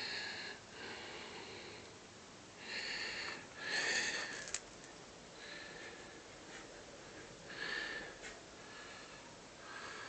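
A person breathing and sniffing audibly, about six short breaths through the nose and mouth, with a single small click a little past the middle.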